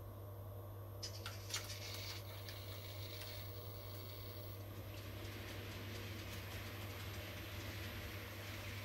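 N gauge model train running on the track, its rolling and motor noise growing louder from about halfway through as it approaches. A few faint clicks about a second in.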